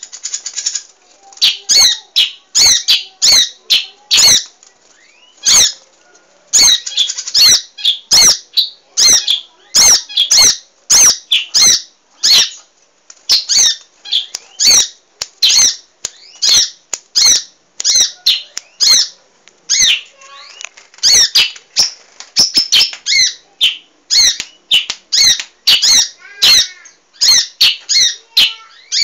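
Munia (burung emprit) calling rapidly and loudly: a dense run of short, high, sharp chirps, several a second, broken by brief pauses.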